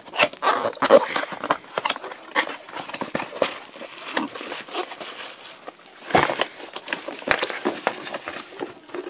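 A cardboard box being opened and its packaging handled: irregular rustling, scraping and clicks, with two heavier knocks around six and seven seconds in.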